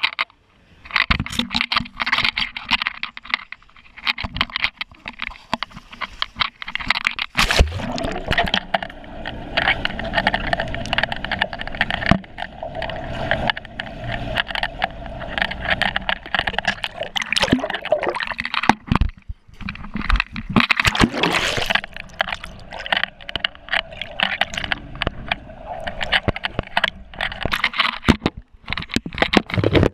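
Water sloshing and bubbling around a GoPro camera in its waterproof housing as it goes into and moves through a swimming pool, heard muffled through the housing, with many clicks and knocks. A loud hit comes about seven and a half seconds in.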